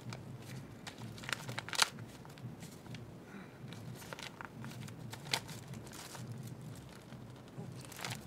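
Sheets of paper being handled and shifted, rustling and crinkling, with scattered sharp ticks and taps; the sharpest tick comes about two seconds in.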